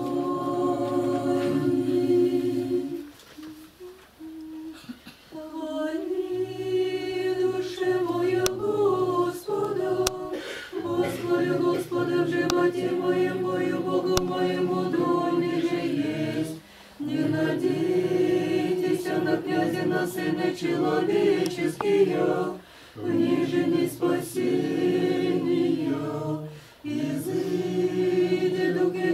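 Orthodox church choir singing a liturgical chant a cappella in long held phrases, with a short gap about three seconds in and brief breaths between the later phrases.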